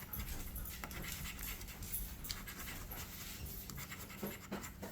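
Scratch-off lottery tickets being scraped, in short intermittent scratching strokes, over a faint steady low hum.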